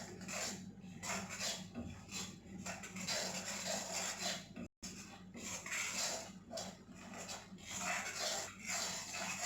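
A spoon scraping and stirring a thick jaggery-syrup and herbal-powder lehya mixture in a kadai, in repeated strokes about two a second.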